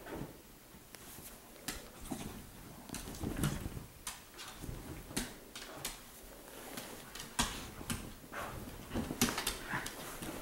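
A dog rustling and digging in a blanket in its fabric dog bed, with scattered short clicks and scuffs.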